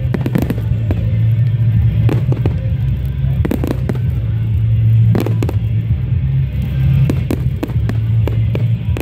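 Fireworks going off, a scattered series of sharp bangs and crackles, over music with a heavy, steady bass.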